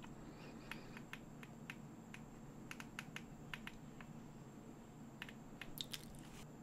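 Faint, irregular clicking from a computer's keys and mouse, about fifteen light clicks scattered unevenly over several seconds.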